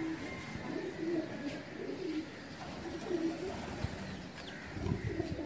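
A flock of domestic Gola pigeons cooing, several birds overlapping in repeated low calls.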